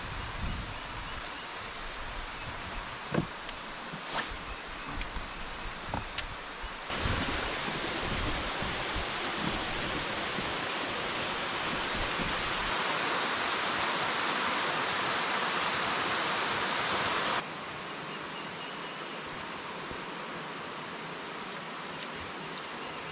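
Steady rushing noise with a few sharp knocks in the first few seconds; its level and tone jump abruptly several times, louder and brighter between about 7 and 17 seconds.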